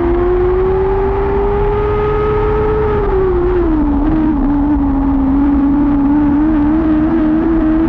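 Lightning sprint car engine running hard at racing speed. Its pitch holds high, eases off about three seconds in, then builds steadily again.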